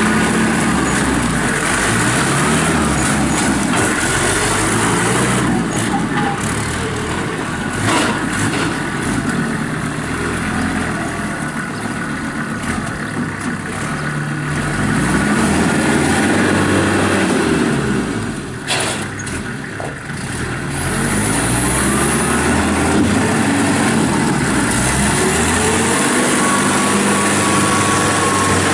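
1998 Kubota M5400 tractor's five-cylinder diesel engine running, its speed rising and falling several times as the tractor is put through its paces. Two sharp knocks stand out, about 8 seconds and 19 seconds in.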